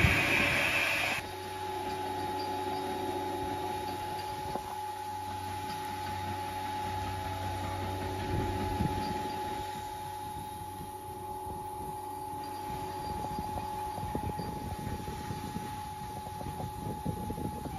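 Rebuilt Bulleid Battle of Britain class steam locomotive 34059 standing in steam: steam hisses from beneath the cab for about the first second. After that a steady high hum or whine comes from the standing engine, with a low irregular rumbling near the end.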